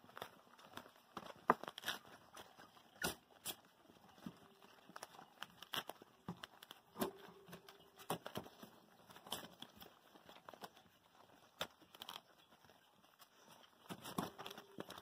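One-month-old Border Collie puppies nursing and scrambling about in a whelping box: irregular clicks, rustles and scratches of small paws and claws on the mat and towel, with a faint whine now and then.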